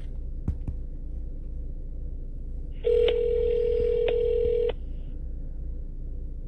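A phone call ringing out on speakerphone: one ring of the ringback tone, a steady buzzing tone about two seconds long starting about three seconds in. Two faint clicks come near the start.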